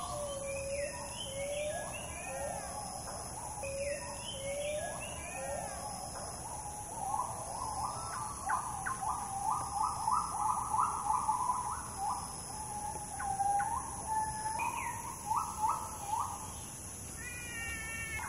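Birds calling in repeated phrases, with a quick series of rising notes in the middle, over a steady high insect drone.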